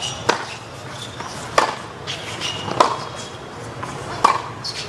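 Tennis rally: four sharp pops of a tennis ball struck by rackets, each about a second and a half after the last.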